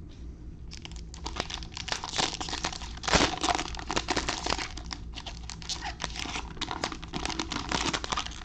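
The foil wrapper of a 2020 Panini Absolute Football fat pack crinkling and tearing as it is ripped open by hand, a dense run of crackles with the loudest rip about three seconds in.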